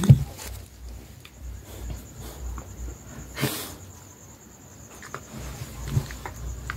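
A faint, steady, pulsing cricket trill in the background, with scattered rustles and soft knocks as a puppy squirms on a bed against a person. A short rush of noise comes about three and a half seconds in.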